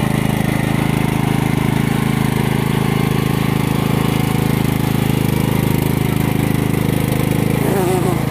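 Motorized tracked all-terrain wheelchair driving through mud and water, its motor running as a steady drone with a fast pulsing underneath.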